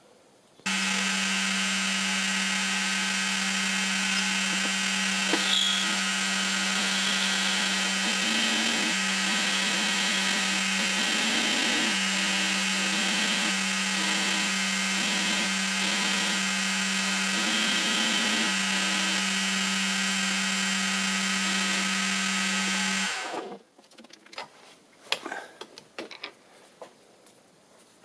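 Milling machine running while cutting a flat on a steel bar: a steady motor hum with a high hiss, starting about a second in and shutting off abruptly near the end, followed by a few light clicks.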